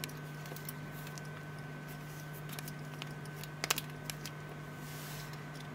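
A few faint clicks and rubbing sounds of a leather watch strap being threaded and buckled around a wrist, the clearest a quick double click about two-thirds of the way in, over a steady low electrical hum.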